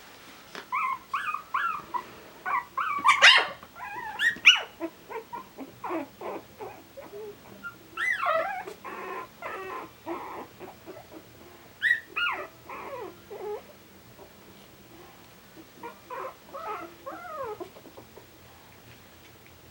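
Three-week-old Coton de Tulear puppies whimpering and yipping in short, high, wavering calls. The calls come in clusters with quieter gaps in between.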